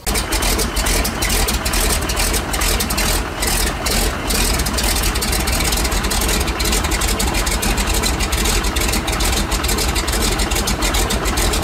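Floatplane's piston engine and propeller running steadily at the dock, a loud unbroken engine drone with the propeller churning the water under the floats.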